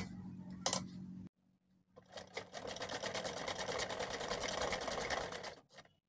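Sewing machine running a quick, even burst of stitches for about three and a half seconds, sewing gota lace onto a fabric strip, with a couple of light clicks before it starts.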